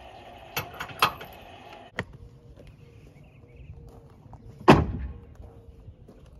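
Hitching work at a travel trailer's tongue: a steady hum that stops about two seconds in, a few sharp clicks and clanks, then one loud thump a little past halfway.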